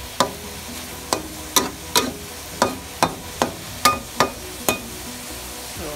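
Metal spatula knocking and scraping against a wok while stir-frying zucchini and egg: about ten sharp clacks, roughly two a second, stopping about five seconds in. Under them the pan sizzles steadily.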